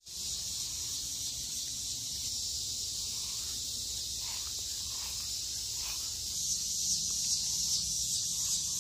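Steady, high-pitched chorus of insects in a summer garden, growing a little louder in the last couple of seconds.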